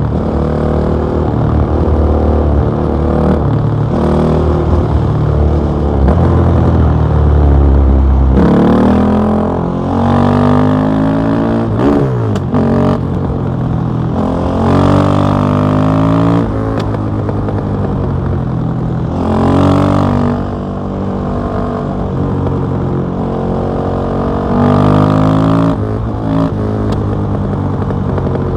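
KTM 660 SMC supermoto's single-cylinder engine through an Akrapovic exhaust, under way. It is revved hard and rolled off again several times, the pitch climbing and falling with each pull.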